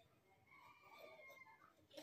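Near silence, with a faint pitched animal call lasting about a second.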